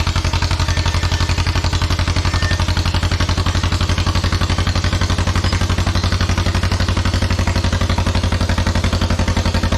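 1954 John Deere 40C crawler dozer's two-cylinder engine running steadily, with a fast, even pulse of firing strokes.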